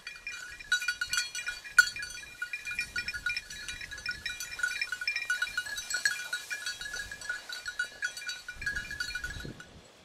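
A bird dog's collar bell jingling in quick, uneven strikes as the dog works through the grass, fading out near the end.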